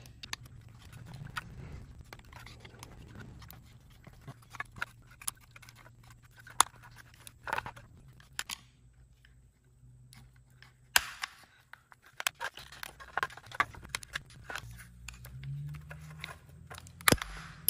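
Irregular clicks, taps and scrapes of a BMW E46 side mirror's plastic actuator housing being worked loose by hand and with a screwdriver, the pieces not yet released. A faint steady low hum runs underneath.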